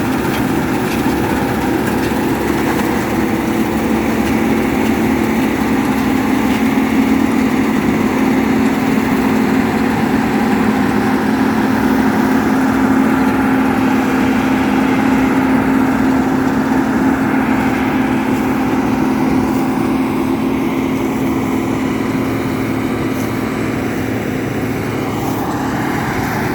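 Diesel engine of a rice harvesting machine running steadily at working speed, a little louder midway and easing slightly near the end.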